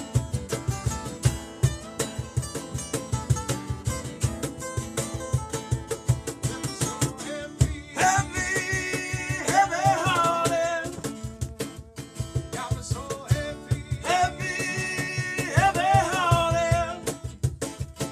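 Acoustic band playing live: strummed acoustic guitar over a steady low beat. A singing voice comes in about eight seconds in, and again about fourteen seconds in.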